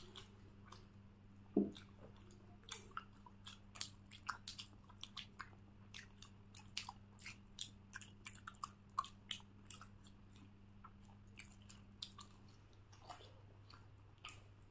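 A person chewing a mouthful of sweet close to the microphone: soft, wet clicking and smacking mouth sounds, several a second and irregular.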